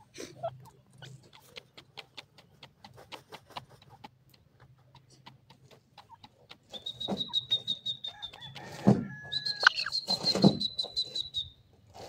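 Grey francolin calling: a run of quick, soft clicking notes for about the first half. Then, from about seven seconds in, loud harsh call notes over a thin, steady, high whistling tone.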